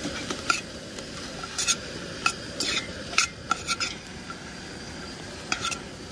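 A metal spoon stirring chopped onions in a stainless-steel pot, with irregular sharp clinks and scrapes of metal on the pot's side over a steady sizzle of the onions frying.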